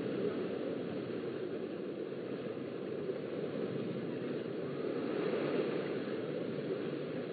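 Beach ambience: a steady rushing of small surf and wind, swelling slightly about five seconds in.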